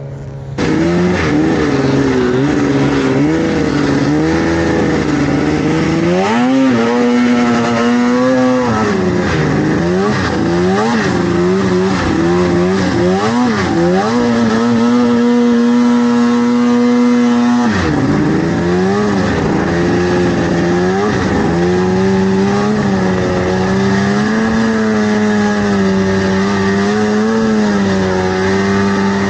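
Vintage two-stroke snowmobile engine running under throttle on the move. Its pitch rises and falls with the throttle, holds steady for a few seconds, then drops sharply and climbs back about two-thirds of the way through.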